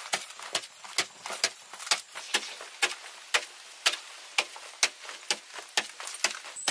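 A steady run of sharp taps or strikes, a little over two a second, like a hand tool striking hard material over and over.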